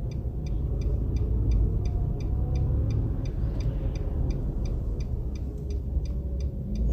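Car driving, a steady low engine and road rumble, with the indicator flasher ticking evenly, about three ticks a second.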